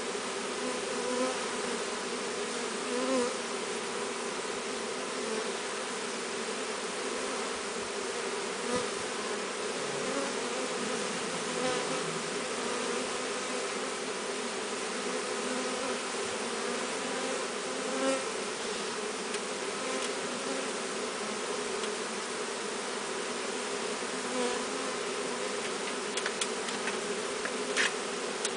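Honeybee swarm buzzing: a dense, steady hum of many bees flying. A few short sharp clicks near the end.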